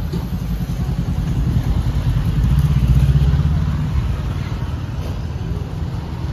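Road traffic: a motor vehicle engine running past close by, growing louder about three seconds in and then fading.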